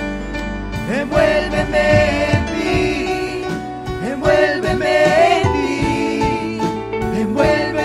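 Worship music: held chords with a melody line that rises and falls above them.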